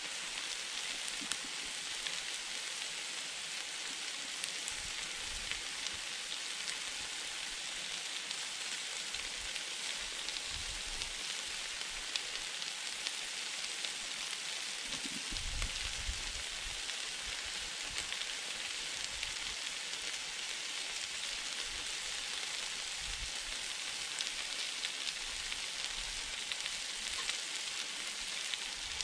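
Steak strips, bell peppers and onions sizzling on a 22-inch Blackstone flat-top griddle: a steady, fine crackling hiss.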